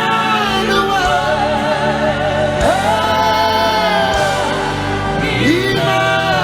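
Live gospel worship music: sung voices with vibrato holding and sliding into long notes over sustained keyboard chords and bass, with the congregation singing along.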